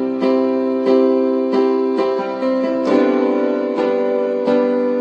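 Piano or electric keyboard intro playing sustained chords, each struck about every two-thirds of a second.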